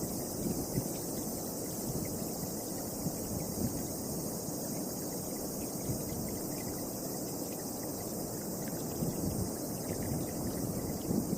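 Wind gusting and buffeting the microphone with an uneven low rumble, over a steady high chirring of insects.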